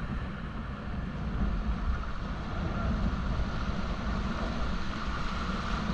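Wind buffeting the microphone over the steady rush of river water around a raft.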